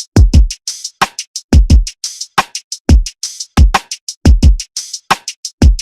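Hip hop drum beat played on a Native Instruments Maschine: deep kicks that fall in pitch, often in quick pairs, with snares and hi-hats in a repeating groove.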